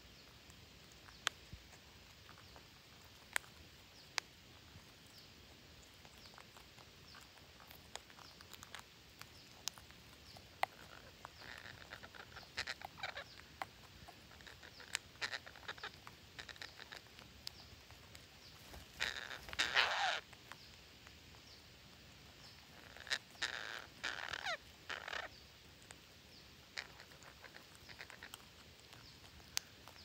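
A flock of parakeets calling: scattered sharp ticks throughout, with bursts of short, harsh squawks and chatter near the middle, a loudest burst about two-thirds of the way through, and another burst soon after.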